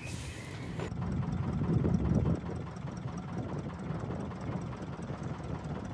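A boat engine running steadily at low revs, a low rumble that swells slightly around two seconds in and eases again.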